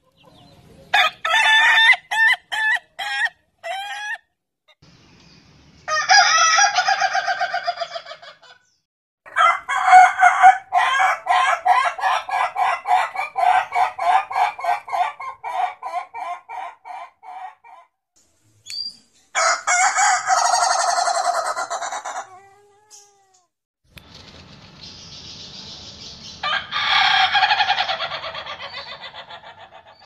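Roosters crowing one after another, several separate crows from different birds. One of them is a long, stuttering crow of about eight seconds.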